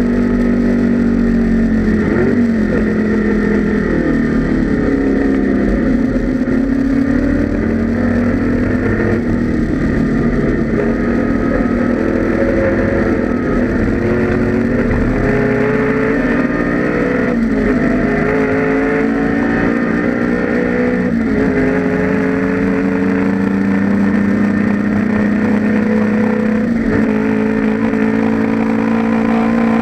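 1984 Ford Mustang GT Group A's 5.0-litre carburetted V8 racing engine running hard under load, its pitch rising and falling with a gear change every few seconds, heard from inside the car.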